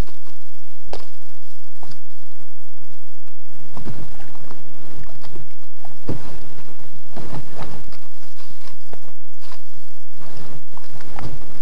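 Sit-on-top kayak being paddled: loud, irregular splashes and knocks of the paddle, about one a second.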